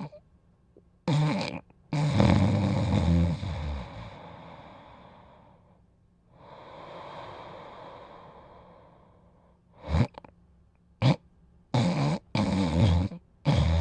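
Dog snoring in its sleep. A long snore about two seconds in trails off slowly, and a run of short snores follows near the end.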